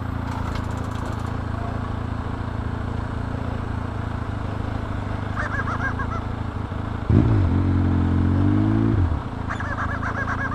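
Motorcycle engine idling steadily, with a deep vehicle horn blast of about two seconds about seven seconds in, the loudest sound here. Short high warbling chirps come in twice.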